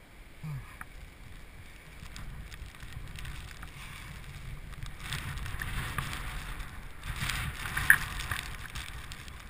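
Wind buffeting a helmet-mounted GoPro's microphone, a low rumble that gusts stronger a few seconds in, with a short knock near the end.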